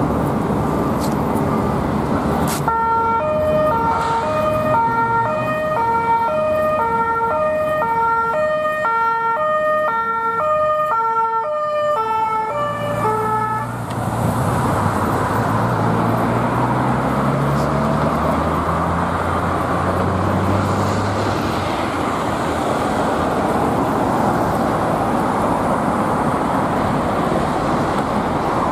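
A French police two-tone siren, alternating between a low and a high note about once a second, sounds from an unmarked police car for about eleven seconds amid traffic noise and then stops. After it, the engines of cars and a motorcycle rise in pitch as they accelerate past in traffic.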